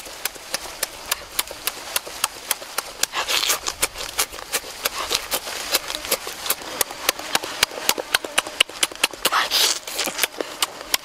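Open-mouthed chewing of grilled chicken wing meat, close up: wet lip-smacking clicks, about three or four a second, with a couple of short rustling slurps.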